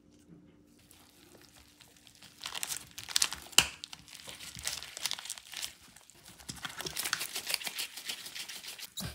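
Food packaging being crinkled and handled, in spells of crackly rustling with a sharp click about three and a half seconds in.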